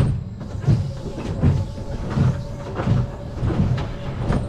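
Wooden roller coaster train rolling slowly, with a series of low clunks and knocks about one to two times a second.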